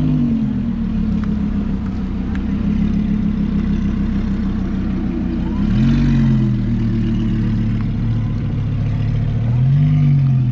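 Straight-piped Audi R8 V10 running at low revs, with three short throttle blips that rise and fall in pitch: near the start, about six seconds in, and near the end.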